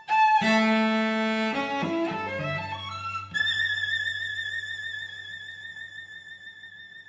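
Three multitracked cellos playing bowed chords and short strong notes. About three seconds in, they give way to one very high note held with vibrato that slowly dies away, closing the piece.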